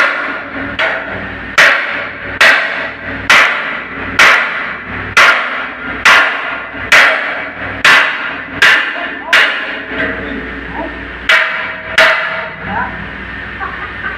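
Hammer blows, about thirteen sharp strikes at a steady pace of just over one a second, each with a short ring. The strikes pause briefly about ten seconds in, then come twice more.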